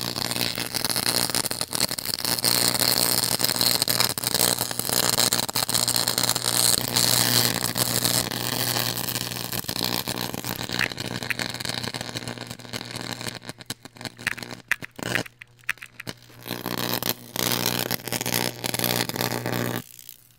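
Electric arc in a homemade arc furnace, burning through molten rock salt: a loud buzz with a steady hum and a crackling hiss. In the second half it cuts out and back in several times, then stops shortly before the end.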